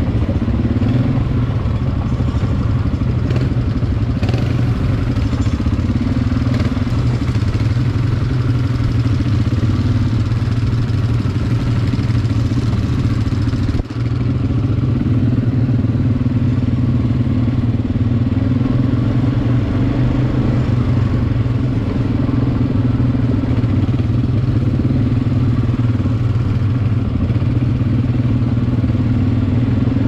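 ATV (quad bike) engine running steadily under way, heard from the rider's seat, with a brief dip in loudness about halfway through.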